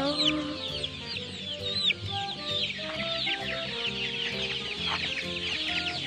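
A crowd of many chicks peeping at once, a dense, unbroken stream of short high chirps that fall in pitch, over background music.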